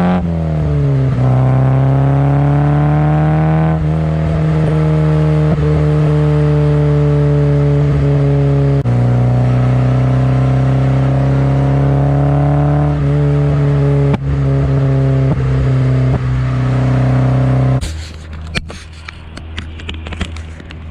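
Nissan KA24DE four-cylinder engine on 4-2-1 headers, test pipe and HKS Hi-Power exhaust, running loud at sustained revs, with the pitch stepping up or down suddenly a few times. About three-quarters of the way through it drops away sharply to a much quieter level, with scattered clicks and knocks.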